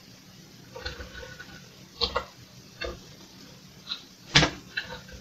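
Computer keyboard keys pressed one at a time while a line of BASIC is edited, about six separate clacks spaced unevenly, the loudest a little past four seconds in.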